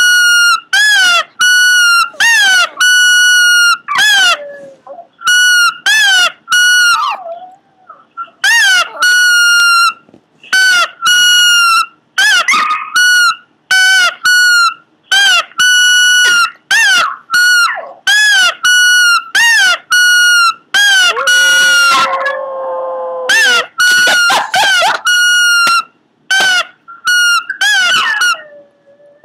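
Pomeranian making a long run of loud, high-pitched cries, one after another with short gaps, many with a quick rise in pitch at the start. About two-thirds of the way through, one lower call is drawn out for over a second.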